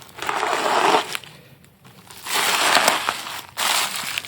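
Packing material being crumpled and handled, in three bursts of crackling rustle, the longest in the middle.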